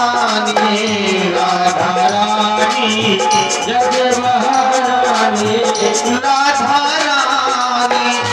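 Devotional bhajan music: a harmonium playing held chords, with drum and shaker-like percussion keeping a steady beat and a man singing over it.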